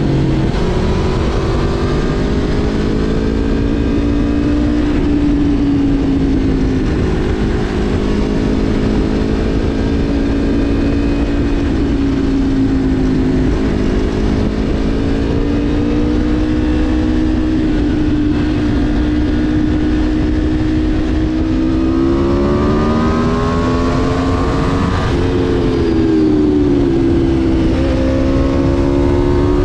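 Aprilia RSV4 Factory's V4 engine running under way at a fairly steady pitch, with a low rush of wind underneath. About three-quarters of the way through, the revs climb for a few seconds and then fall away before settling again.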